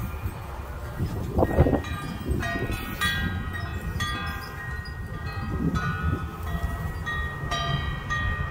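Wind chimes ringing, several metal tones struck over and over and overlapping as they ring on, over a steady low rumble. A louder rush of noise comes about a second and a half in.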